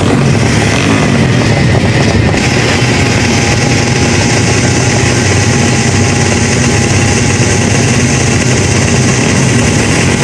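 Drag motorcycle's engine running loudly at a steady speed while the bike is held at the start line.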